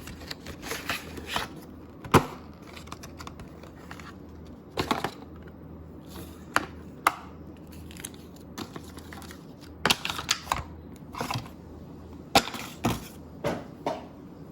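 Irregular light clicks and taps, about a dozen spread unevenly, over a steady low hum.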